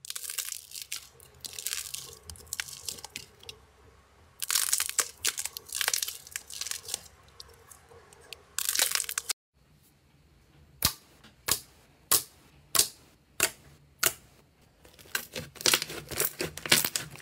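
Slime and clay squeezed and kneaded by hand. First comes a dense crackling and tearing as a yellow duck-shaped clay figure is pressed and its crust breaks, swelling louder twice. Then purple fluffy slime is kneaded, with sharp separate pops about every half second that crowd together near the end.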